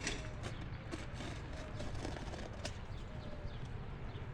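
Scattered light clicks and taps over a steady low rumble, like hands handling something.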